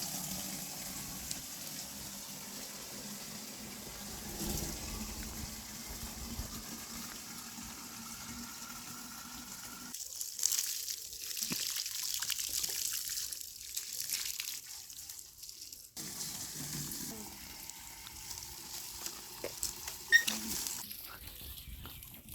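Water pouring and splashing while a garden is watered, a steady rush that grows stronger and hissier for several seconds in the middle.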